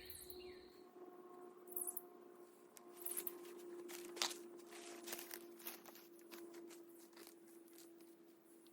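Faint scattered rustles and clicks, like leaves or gear being shifted, over a faint steady hum.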